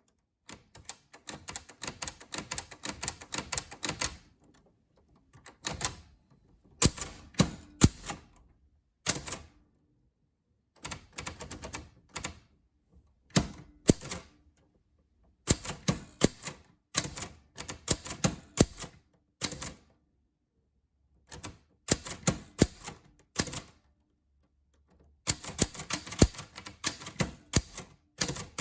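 Typewriter keys clacking in quick runs of strokes, broken by short pauses of about a second between runs.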